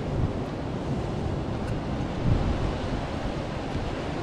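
Ocean waves breaking and washing over a rock shelf, a steady surf noise, with wind buffeting the microphone in gusts.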